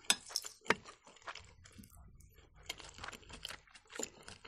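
Close-miked eating sounds: chewing with crunching and scattered sharp clicks. A metal fork clinks on a plate about four seconds in.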